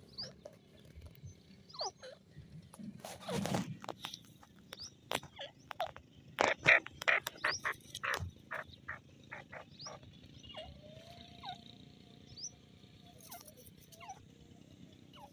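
Grey francolin calls: short rising chirps every second or two, with a run of sharp clicking notes about halfway through.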